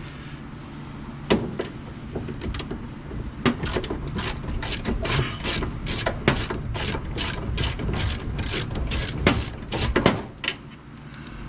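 Hand ratchet wrench clicking through a run of strokes, two or three sharp clicks a second, as the bolts of a truck door hinge are worked loose. It starts after a few scattered clicks and stops about ten seconds in, over a steady low hum.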